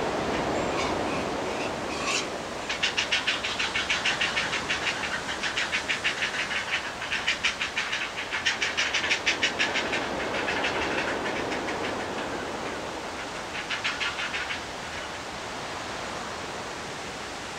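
Great blue heron fledglings giving their begging call at the nest while being fed: a rapid, evenly spaced clacking series that starts about 3 seconds in, runs for roughly eight seconds and comes back in a short burst near the end, over a steady rushing background noise.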